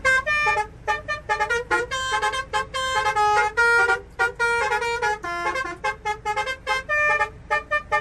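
Six-trumpet basuri musical truck horn, worked by remote, playing a fast melody of many short notes with a few longer held ones.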